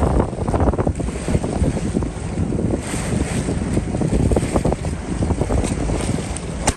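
Wind buffeting the microphone over choppy open water, with water splashing around the boat. A sharp click comes right at the end.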